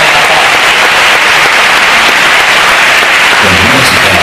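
A large audience applauding steadily. Near the end, low background music starts underneath the clapping.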